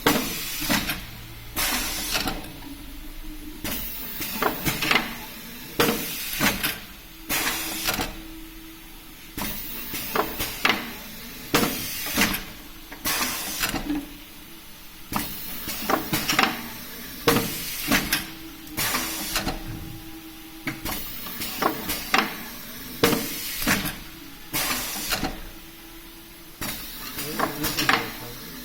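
Automatic shrink packaging machine running through its cycles, with repeated clacks and short bursts of hiss about once a second or so.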